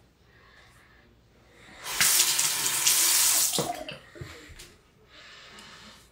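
Bathroom sink tap running hard for about a second and a half, then cut off, with a few low knocks after it. This is typical of rinsing a razor between strokes while shaving. Near the end comes a fainter hiss of scraping, like a razor drawn through lather.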